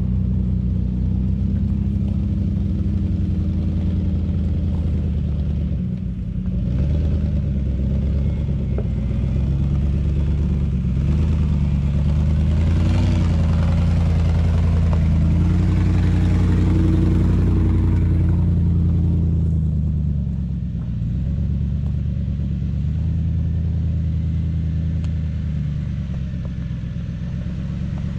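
Truck engine running at low speed, its pitch rising and falling with the throttle as the truck crawls over rough trail; louder and noisier for several seconds in the middle.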